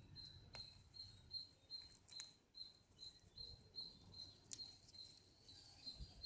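Near silence with a faint, regular high chirp repeating about two and a half times a second, and a few faint clicks.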